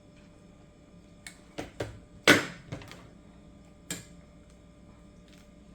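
A few scattered light clicks and knocks from handling plastic drip irrigation tubing and fittings, the loudest a sharp knock a little over two seconds in.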